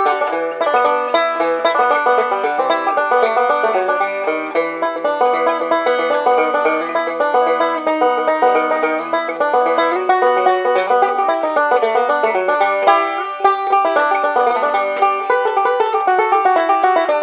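Five-string resonator banjo with a 1929 Gibson Oriole rim, Huber vintage tone ring and walnut neck, picked with fingerpicks in three-finger bluegrass style: a fast, unbroken stream of picked notes.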